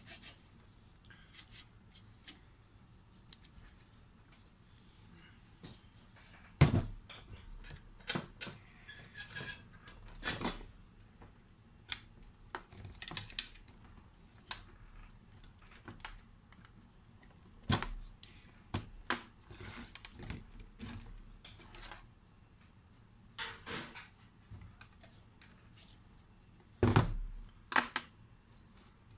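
Clicks, knocks and rattles of a computer power supply and its cables being handled and connected while the power supply is swapped for an older one, with a few louder knocks spread through.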